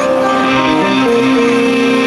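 Live band music with electric guitar and keyboard playing held notes, without vocals.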